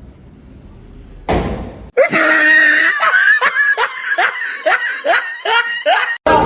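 A person laughing hard in a run of about nine short rhythmic bursts, after a brief noisy thump about a second in. The laughter cuts off suddenly near the end.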